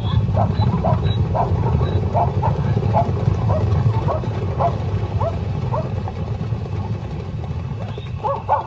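Zebra herd galloping, a dense low rumble of hoofbeats, with short yelping zebra barks about twice a second that thin out near the end.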